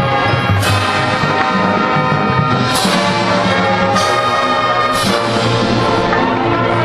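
Marching band playing a loud brass passage, held chords over a bass line, with cymbal crashes about a second apart in the middle.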